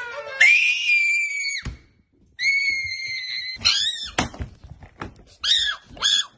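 High-pitched screaming: two long, held screams with a knock between them, a sharp thud about four seconds in, then two short high cries near the end.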